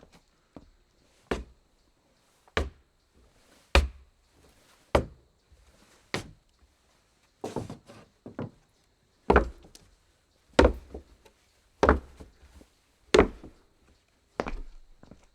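Footsteps of shoes on a wooden floor: a slow, even walk of about one step every 1.2 seconds, each step a short knock, some landing as a quick double hit.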